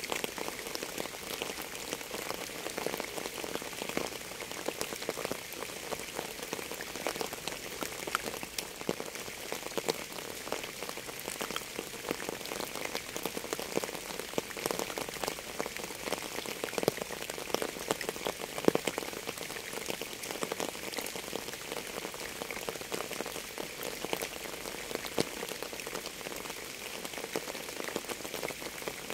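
Steady rain falling on a hard surface: an even hiss made up of many separate drop strikes, a few of them louder than the rest.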